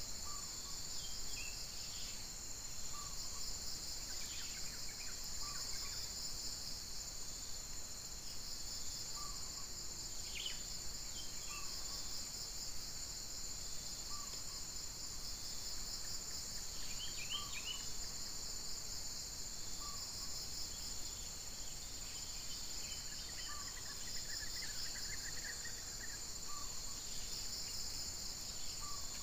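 A steady, high-pitched insect chorus, trilling throughout, with a short faint note repeating about every two seconds and a few scattered chirps.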